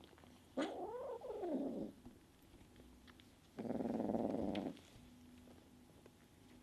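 Bengal kitten calling: a drawn-out meow that rises and then falls in pitch, followed about three seconds in by a low rough growl lasting about a second, the sound of an irritated kitten warning off other cats.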